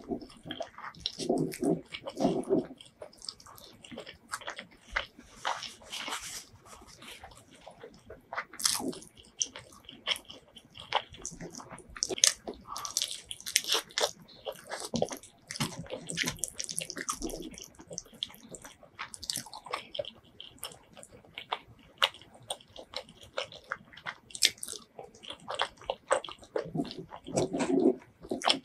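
Close-miked eating sounds: wet chewing, lip smacks and sharp mouth clicks while biting into curried chicken and rice eaten by hand. The clicks come irregularly throughout, with heavier low chewing about a second in and near the end.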